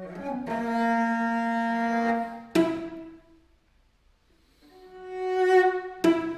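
Solo cello bowed: a held note, then a sharply attacked short note that rings off. After about a second of silence comes a note that swells louder and breaks off in another sharp attack near the end.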